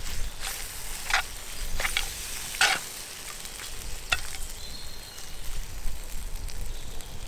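Metal tongs tossing spaghetti and seafood in a hot skillet over a campfire: a steady sizzle with about five sharp scrapes of the tongs against the pan in the first four seconds, fewer after.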